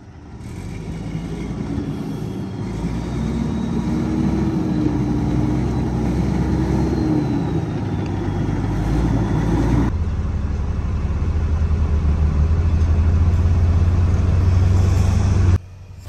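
Truck engine pulling a flatbed trailer loaded with hay bales, growing louder over the first few seconds. About ten seconds in it changes abruptly to a closer, steady low engine drone, which cuts off suddenly near the end.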